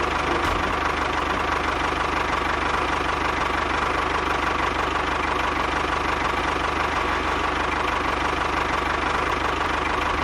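A small motor running steadily with a fast, even low pulsing and a faint steady whine.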